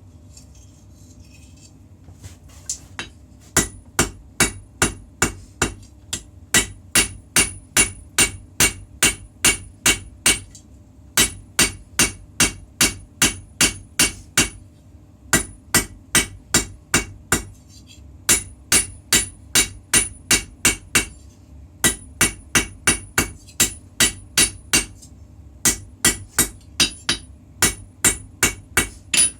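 Blacksmith's hammer striking a puukko blade on an anvil during forging: quick blows about three a second, in runs of several seconds with brief pauses, each with a high metallic ring. The hammering starts about three seconds in.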